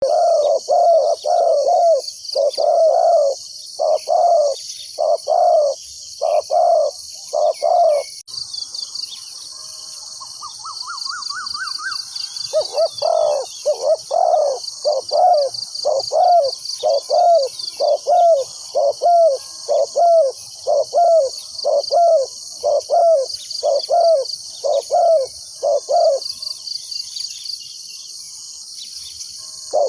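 Spotted dove cooing in long runs of short, evenly repeated notes, about two a second, with a pause of a few seconds near eight seconds in and again near the end. A steady high insect drone runs underneath, and a short rising trill from another bird sounds in the first pause.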